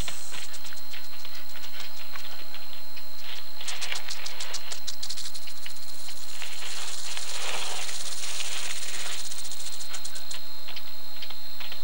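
Rattlesnake rattling in several bursts of dry, rapid buzzing, its warning to a larger animal, over a steady high tone.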